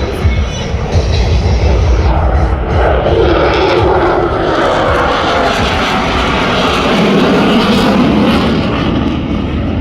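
Military display aircraft flying past low: a loud, steady engine roar whose tone slowly drops in the second half as it passes.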